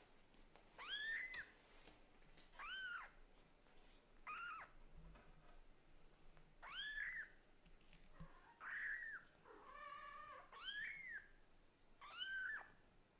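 Newborn kittens crying for their mother: a string of short, high-pitched mews that rise and then fall, about one every two seconds. One lower, flatter call comes a little before the ten-second mark.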